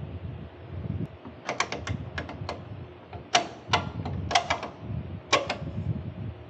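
A dozen or so sharp metallic clicks and taps in irregular quick clusters, some with a short ring, typical of hand tools being handled against metal parts.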